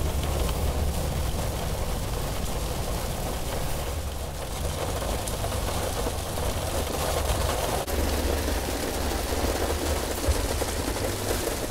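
Steady cabin noise of a moving vehicle at road speed: a low rumble from the road under an even rushing hiss.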